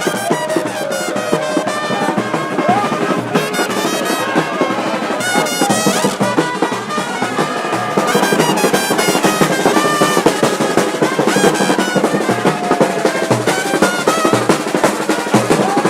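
Music with brass instruments, trumpets prominent, over a steady drum beat with snare rolls.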